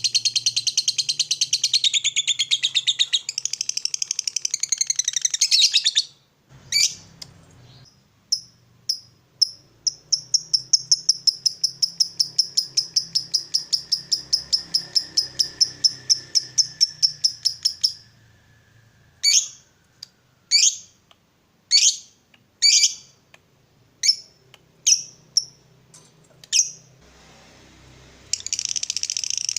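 Lovebird chattering in its long "ngekek" trill: a dense run of high chirps, then a long string of fast repeated notes about five a second, then single sharp chirps about a second apart, and dense chatter again near the end.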